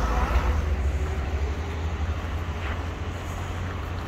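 Street traffic: a car passing over a steady low rumble of city traffic, a little louder in the first second or so.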